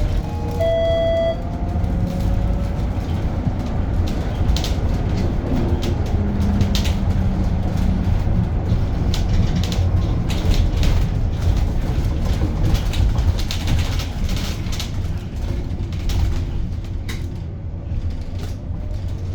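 Edison Motors SMART 093 electric city bus driving, heard inside the cabin: steady road and tyre rumble with scattered rattles and knocks. The electric traction motor's whine rises in pitch near the start and again near the end as the bus gathers speed. A short electronic beep sounds just under a second in.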